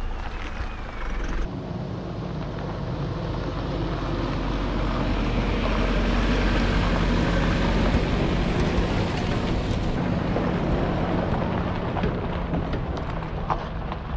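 Toyota Fortuner 2.8 four-cylinder turbodiesel 4x4 towing an off-road caravan driving past on a dirt track: engine and tyre noise that grows louder to a peak about eight seconds in, then fades.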